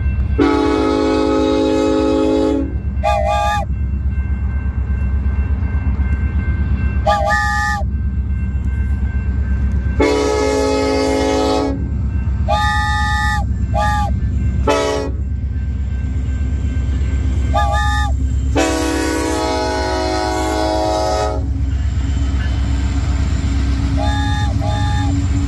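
A train rumbles past throughout, and its horn gives three long, low, chorded blasts. Between them come several short, higher toots with a slight bend in pitch, from a wooden train whistle blown by mouth.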